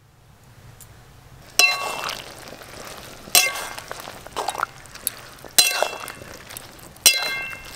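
Flat metal spatula stirring jujube fruits in a metal karai, striking the side of the pan four times with ringing clinks, about every one and a half to two seconds, with soft stirring noise between.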